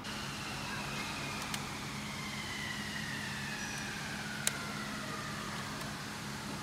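Steady low hum of running machinery, with a high whine that slowly falls in pitch and two sharp clicks, the louder one about four and a half seconds in.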